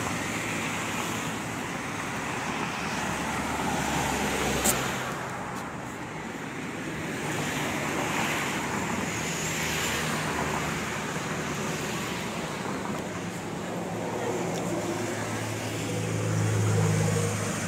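Road traffic going past, a steady rush of tyres and engines that swells and fades as vehicles pass, with a single sharp click about five seconds in and a louder low engine hum near the end.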